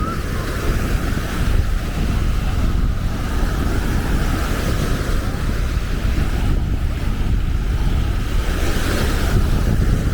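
Wind buffeting the microphone in a low rumble, over the steady wash of Baltic Sea waves breaking on a sandy beach.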